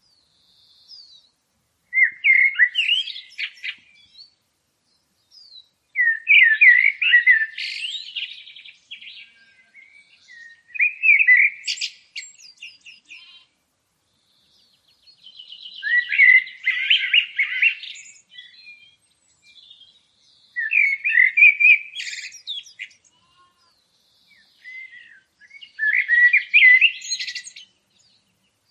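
A songbird singing: six warbled phrases of about two seconds each, repeated every four to five seconds, with a few short single notes between them.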